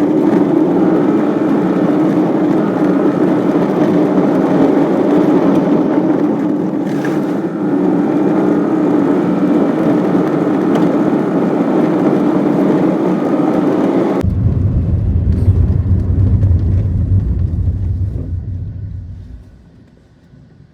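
Waterfall, a loud steady rush of falling water. About two-thirds of the way in it changes suddenly to a deep low rumble, which fades out near the end.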